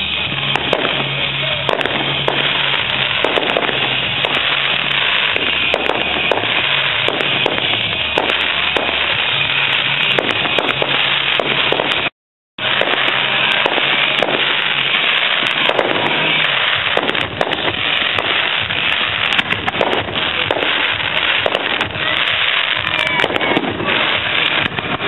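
Firework display going off continuously: a dense, overlapping barrage of bangs and crackles with music playing underneath. The sound cuts out completely for about half a second midway.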